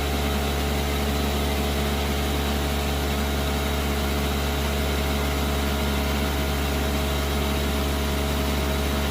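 Air compressor's electric motor and pump running steadily with a strong low hum, on a test run after its air leak at the coupling was repaired.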